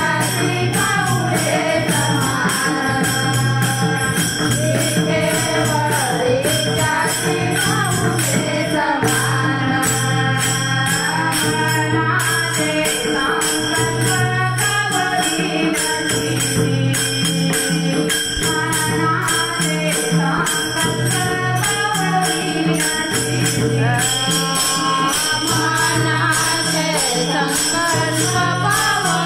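Warkari bhajan singing: voices chanting a devotional abhang over a steady low drone, with small hand cymbals (taal) jingling in a continuous even rhythm.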